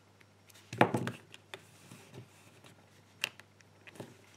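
Small plastic bottle combination lock being handled: one louder clunk about a second in, then a few sharp, scattered clicks as its number wheels are turned to set a new code.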